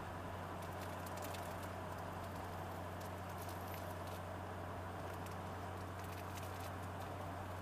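Steady in-cab drone of a Ford F-250 Super Duty diesel pickup under way: a constant low engine hum over tyre and road noise, with a few faint crackles.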